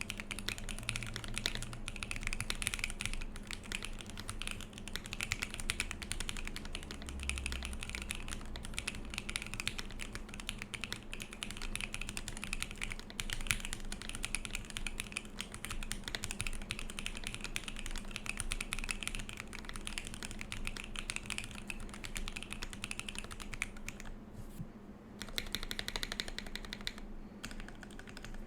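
Continuous fast typing on an ai03 Polaris gasket-mount mechanical keyboard with a polycarbonate plate, lubed and filmed Alpaca linear switches and CRP JiPink keycaps. The dense run of keystrokes stops briefly near the end, then resumes.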